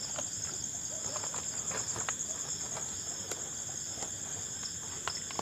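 Crickets trilling steadily in a dense high-pitched chorus, with a few faint scattered clicks.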